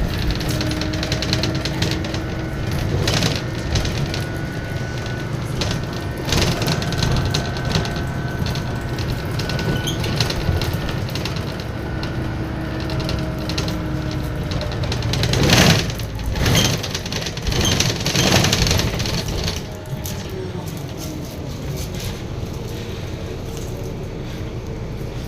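Volvo B7RLE single-deck bus under way: the diesel engine runs with the ZF automatic gearbox whining and the turbo whistling, heard as thin tones that slowly rise and fall through the gears. Body rattles and knocks come throughout, loudest in a cluster from about two-thirds of the way through.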